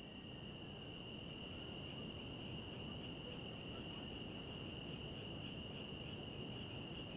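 Night insects, faint: a steady high cricket-like trill with no breaks, and a fainter, higher chirp repeating about every three quarters of a second.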